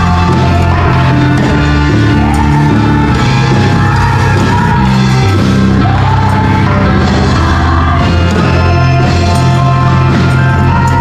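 Loud live gospel praise music: a band with a strong bass line, and a group of women singing.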